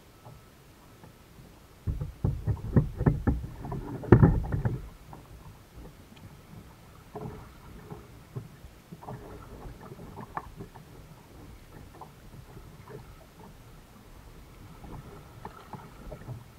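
Plastic sit-on-top kayak being paddled, with paddle splashes and knocks against the hull: a cluster of loud thumps about two to five seconds in, then lighter scattered knocks.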